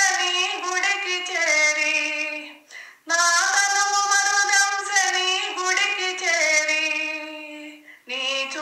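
A woman singing a Telugu devotional song solo, in two long phrases of held, sliding notes with a short breath break about three seconds in and another near the end.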